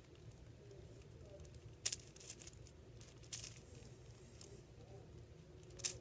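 Faint plastic clicks and clacks of an 8x8 Rubik's cube's layers being turned by hand, with two sharper clicks about two seconds in and near the end.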